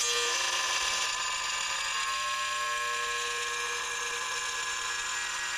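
Bosch GWX 18V-15 SC cordless mini angle grinder with a multimaterial disc cutting through a white-body ceramic tile: a steady high whine.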